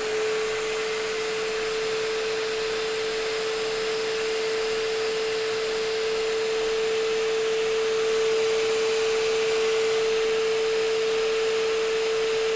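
Bissell portable 330 W spot cleaner's suction motor running steadily: a level, high whine over rushing air.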